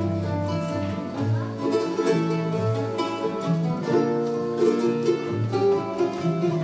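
A small, high-pitched plucked string instrument and an acoustic guitar play an instrumental passage together.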